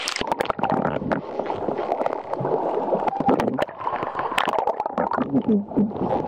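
Seawater sloshing and gurgling around a camera bobbing at the waterline, dipping in and out of the water, with many sharp clicks and pops throughout.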